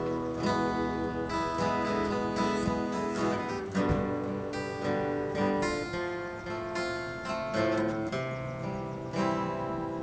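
Steel-string acoustic guitar played solo, picked and strummed chords ringing on, a new stroke every half second to a second.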